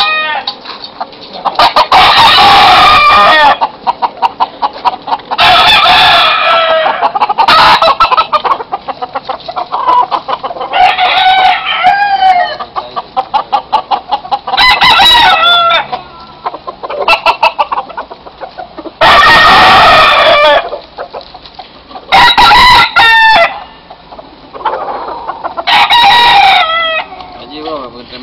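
Gamecocks crowing over and over, about seven loud crows a few seconds apart from different birds, with rapid clucking between the crows.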